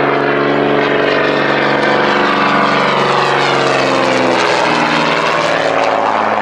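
SAAB Safir single-engine propeller trainer flying past overhead, its engine and propeller note dropping in pitch about halfway through as it passes and heads away.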